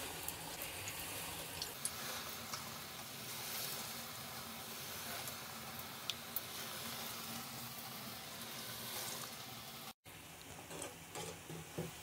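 Moong dal fritters deep-frying in hot oil in a steel kadai: a steady sizzle with many small pops and crackles. After a brief break about ten seconds in, the frying is quieter and a slotted spoon gives a few light knocks in the pan.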